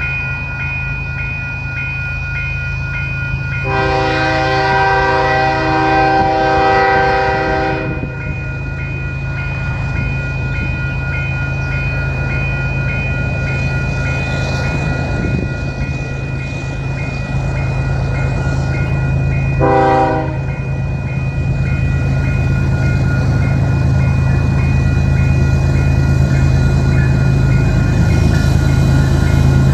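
A GE ES44AC locomotive's GEVO diesel engine runs at full throttle (notch 8) as the slow freight train draws nearer, its drone steadily growing louder. Its Nathan K5HL five-chime air horn sounds a long blast of about four seconds, starting about four seconds in, and a short blast about two-thirds of the way through.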